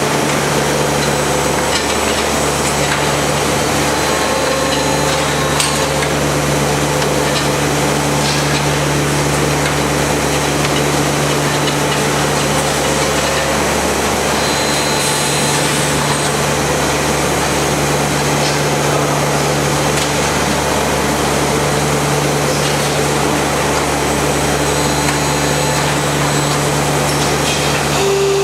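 Machinery of an automated laminate production line running steadily: a constant low hum under a broad hiss, with a few faint ticks and short tones.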